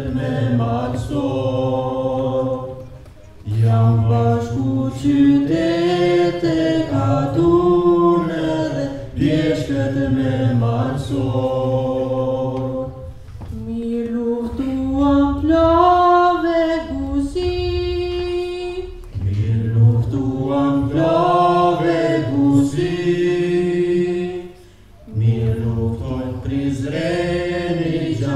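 Several voices singing a melody together without instruments, with long held and gliding notes and two short breaks.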